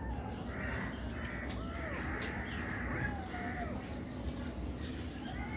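Kittens meowing: several short mews that rise and fall in pitch, over a steady low rumble. A high rapid twitter runs through the middle.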